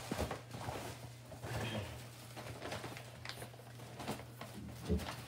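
Faint rustling and crinkling of a paper gift bag and tissue paper being handled, with scattered small ticks and a single knock near the end, over a low steady hum.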